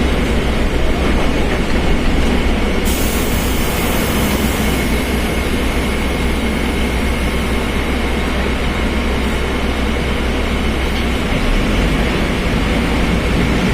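Mercedes-Benz OF1721 BlueTec 5 bus driving steadily, with loud drive noise and a high, steady whine from its differential, which is droning loudly.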